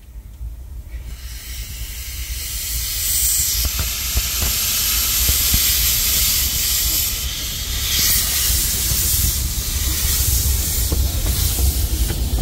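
Miniature steam locomotive letting off steam from its cylinder drain cocks, a loud, steady hiss that starts about a second in and builds. A steady low rumble runs underneath.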